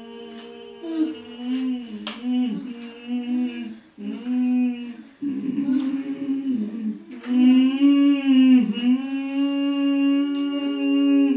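Wordless human voices humming long held notes that slide in pitch between notes, sometimes two voices at once. A few sharp clicks sound through the humming.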